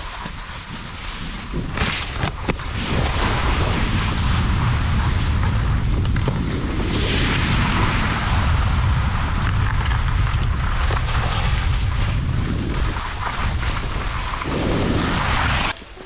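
Wind buffeting the microphone during a downhill ski run, over the hiss and scrape of skis sliding on slushy snow. It builds over the first two seconds, then holds steady until it cuts off sharply just before the end.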